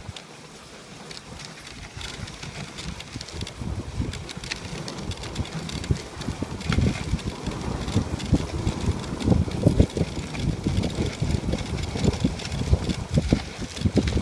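Dogsled running over a packed-snow trail: a low rumble and scrape from the runners with many irregular knocks and jolts, getting louder about two seconds in, with wind on the microphone.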